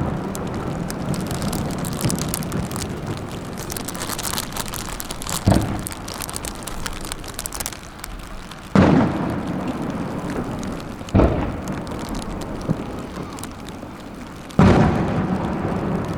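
Fireworks shells bursting overhead: four sharp booms a few seconds apart, the first about five seconds in, each trailing off in a rumbling echo. A dense crackle of crackling-star effects runs through the middle.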